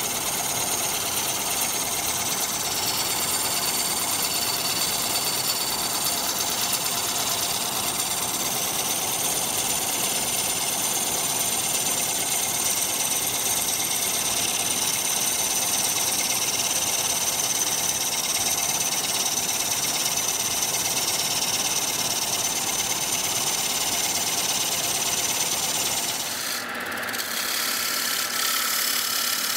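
Wood lathe running with a turning tool cutting into a spinning wooden bowl, a steady hiss of shavings over the machine's hum. The sound shifts abruptly about three quarters of the way through, losing its low end.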